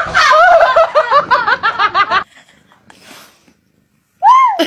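A person laughing hard in quick, high-pitched repeated bursts for about two seconds, then stopping. Near the end comes a single short high cry that rises and falls.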